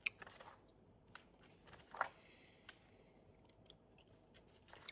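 Near silence, broken by a few faint soft clicks and rustles. The first comes right at the start as a page of a spiral-bound booklet is turned, and another comes about two seconds in.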